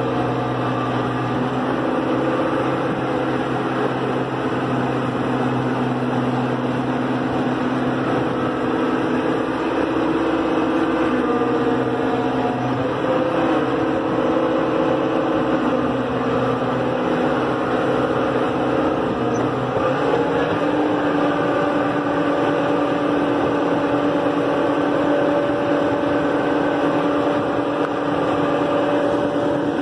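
John Deere tractor engine running steadily, heard from the operator's seat, its pitch stepping to a slightly different level a couple of times.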